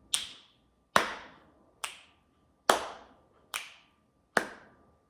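Hand claps alternating with finger snaps in a steady clap-snap rhythm, one sound about every 0.85 s: three snaps and three claps, the claps louder and fuller, the snaps shorter and thinner.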